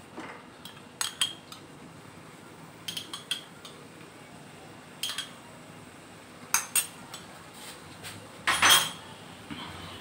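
A metal spoon clinking and tapping against a small bowl and a cooking pan in short, separate clinks, a few at a time with gaps between, the loudest and longest cluster near the end.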